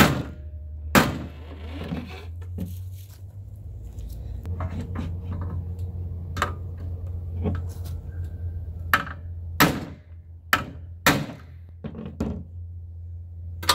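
Irregular sharp knocks and thunks of tools and sunroof track parts being handled and struck, about nine in all, most of them bunched in the second half, over a steady low hum.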